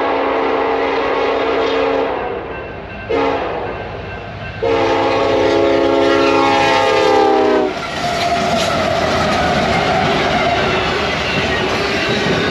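Union Pacific freight locomotive horn sounding at speed: a long blast that ends about two seconds in, a short one about a second later, then a long blast that drops in pitch as the locomotive passes. After it comes the loud rush and clatter of the intermodal train's cars going by at speed.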